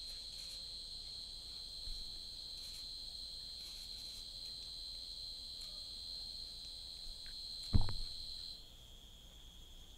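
Steady high-pitched drone of insects (crickets or cicadas), dropping slightly in pitch a little past eight seconds. A brief low thump stands out just before that.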